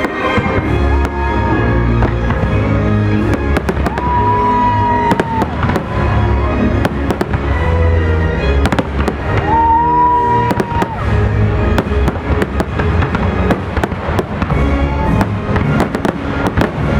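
Fireworks display going off, a rapid, dense string of sharp bangs and cracks, with music playing along with it, including long held notes.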